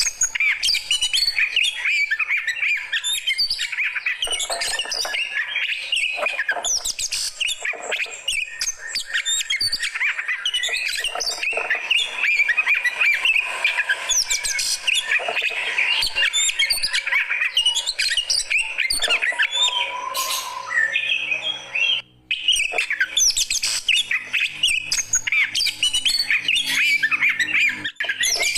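Oriental magpie-robin (kacer) singing continuously in fast, varied chirps, whistles and harsh notes, the high-energy 'fighter' style of song. There is a brief break about 22 seconds in.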